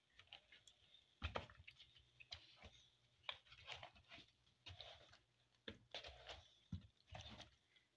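Faint, irregular soft squelches and pats of a hand mixing masala-coated rohu fish pieces in a plastic bowl, the loudest about a second in.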